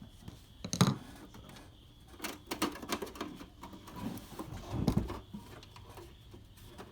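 Irregular clicks and knocks of objects being handled and set down, with a sharp knock about a second in and a heavier thump about five seconds in.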